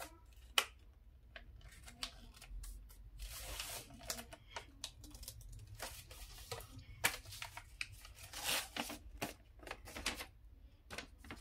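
A sheet of A4 paper being folded and creased by hand: intermittent rustling and crinkling, with short crackles as the folds are pressed down.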